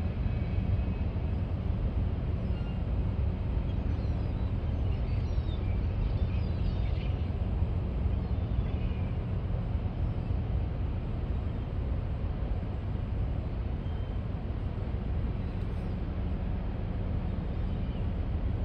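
Steady low rumble and hum of the cruise ferry Gabriella's engines as she moves slowly past, with faint bird chirps about four to nine seconds in.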